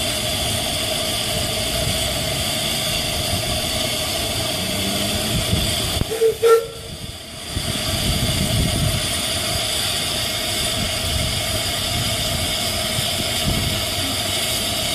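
Narrow-gauge steam locomotive standing with steam escaping in a steady loud hiss. About six seconds in come two short loud whistle-like blasts, then the hiss dips briefly before it returns.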